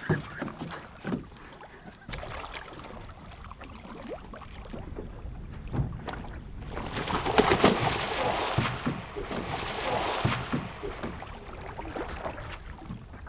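A hooked giant arapaima being fought from a canoe: a few knocks on the canoe hull early on, then about three and a half seconds of loud splashing water starting about halfway through.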